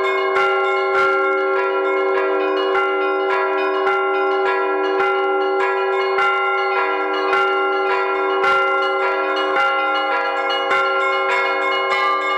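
Church bells being rung: a quick run of strikes, two or three a second, over a steady ringing of the bells.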